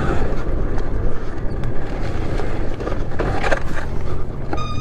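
A 1989 Honda CR500R's single-cylinder two-stroke engine running at low revs on the move, with wind on the microphone. Sharp knocks and rattles come through several times, the sound of a chain gone loose after its adjuster bolt and block fell off.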